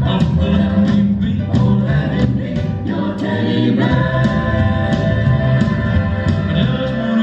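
Background music: a song with singing voices over a steady beat of about two beats a second.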